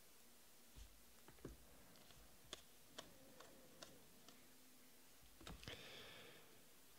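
Faint, scattered clicks of baseball trading cards being flicked through in the hands, about seven light taps, with a soft rustle of card against card near the end.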